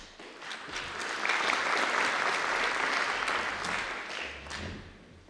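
An audience applauding, the clapping building over the first second, holding for a few seconds, then dying away near the end.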